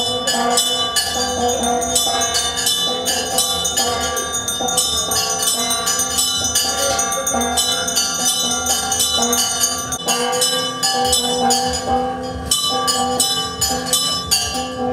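Temple bells ringing continuously with rapid, repeated strikes, their ringing tones overlapping.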